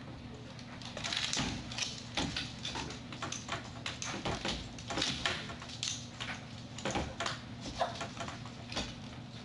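A small dog's claws clicking and scraping against a plastic lattice baby gate as it paws and climbs at it, in quick irregular taps that start about a second in.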